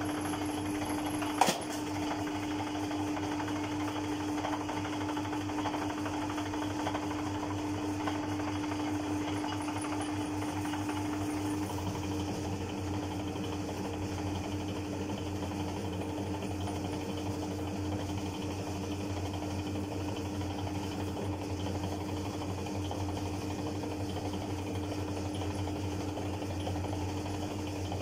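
Electric noodle-dough roller machine running steadily with a motor hum and low rumble as dough is fed through its rollers. There is one sharp knock about a second and a half in, and the hum changes slightly about twelve seconds in.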